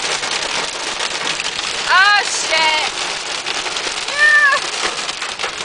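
Hail pelting a pickup truck's roof and windshield, heard from inside the cab as a dense patter of many sharp hits. A few short high-pitched voice exclamations rise over it about two and four seconds in.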